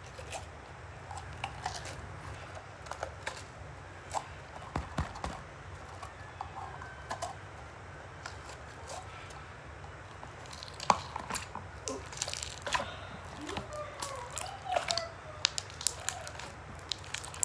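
Slime squelching and popping as it is squeezed out of a plastic bottle and kneaded by hand, a string of sharp wet clicks and pops that come thicker after about ten seconds.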